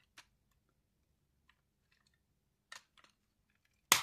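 Faint clicks of plastic toy parts being handled, then one sharp, loud snap near the end as two halves of a transforming robot toy's train car click together.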